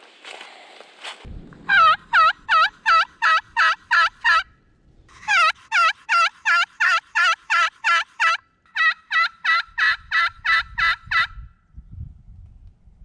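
Turkey yelping: three long runs of evenly spaced, loud yelps, about three to five a second, each run a little faster than the one before. A low rumble sits under the first and last runs.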